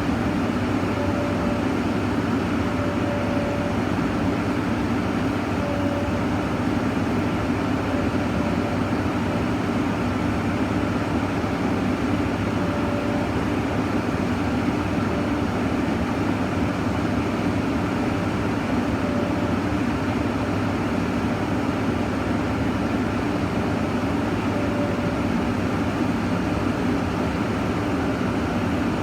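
Excavator's diesel engine running steadily, with a faint short higher tone that comes and goes every few seconds.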